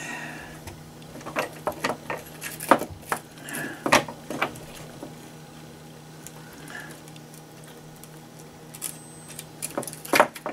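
Scattered clicks and light taps of small plastic and metal parts being handled and fitted on an RC truck chassis. They are busiest between about one and a half and four and a half seconds in, and come again near the end.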